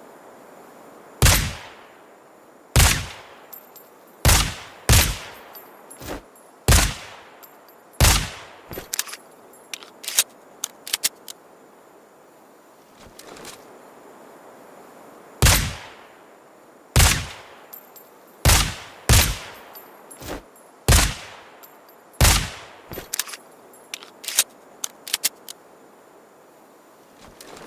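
Suppressed Desert Eagle pistol shots in two strings of about seven, fired roughly one to one and a half seconds apart, each shot a sharp report with a short tail. Each string is followed by a few seconds of light metallic clicks and tinkles.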